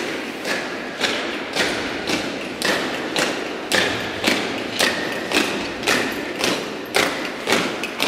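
A squad of honour guards in boots marching in step on a tiled church floor, a little under two heavy footfalls a second, echoing in the nave, with a faint metallic ring after many of the steps.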